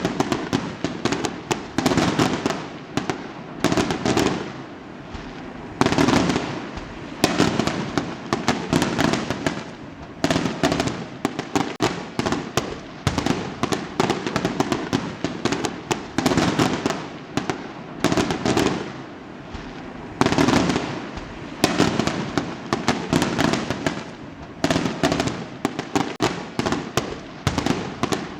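Fireworks going off in quick succession: a fresh loud burst every second or two, each trailing into dense crackling.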